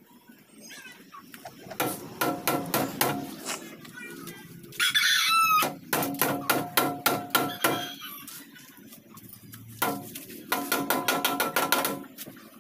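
Rapid hammer blows on sheet-metal body panels in three quick runs, the metal ringing after each blow, typical of panel beating during auto body repair. A rooster crows once, about five seconds in.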